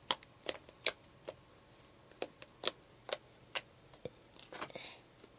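Homemade slime being poked and played with by hand, making sharp little clicks and pops, roughly one every half second. A short soft squish comes a little before the end.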